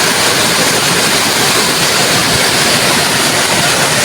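Rushing floodwater: a loud, steady roar of fast-flowing water.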